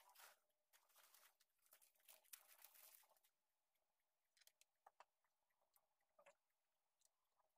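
Very faint handling noise: soft crinkling of a small piece of packaging in the hands for about the first three seconds, then a few light clicks and taps as a part is handled and fitted on the drone.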